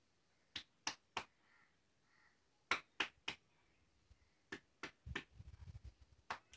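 Sharp clicks in quick groups of three, each group about a third of a second between clicks, with a lone click near the end. A run of soft low thumps comes about five seconds in.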